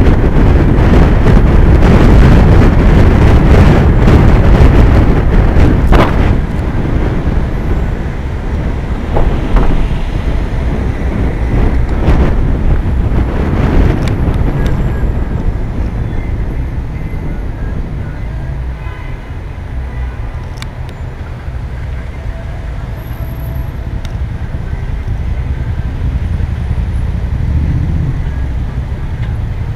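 Road and traffic rumble heard from a car driving slowly through city traffic, loudest and roughest for the first six seconds, then settling to a quieter steady rumble.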